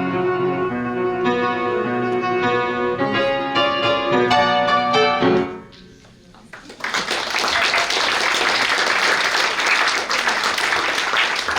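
Solo piano playing the closing notes of a piece, which die away about halfway through. About a second later, audience applause breaks out and continues.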